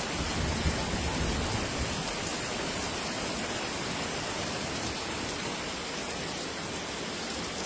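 Steady downpour of rain.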